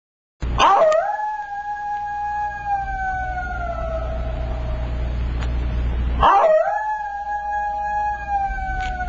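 Two long, howl-like animal calls, each rising briefly and then holding a wavering tone that slowly falls over about three seconds; the second starts about six seconds in. A low, steady rumble runs underneath.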